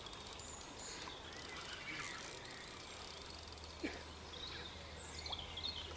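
Quiet outdoor lakeside ambience with a steady low background hum, a few faint high bird chirps near the end and a single short knock about four seconds in.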